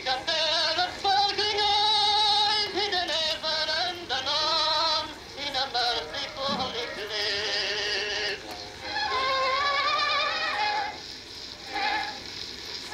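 An Edison Opera phonograph plays a recorded singing voice with a strong vibrato from a celluloid Amberol cylinder through its horn. The tone is thin, with little bass, and the song comes in several phrases with short breaks between them. The machine is freshly restored and working again.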